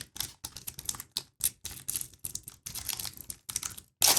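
A SkyBox trading-card pack wrapper being picked at and pulled open by hand: a rapid, irregular run of small clicks and crinkles as the stubborn wrapper resists opening.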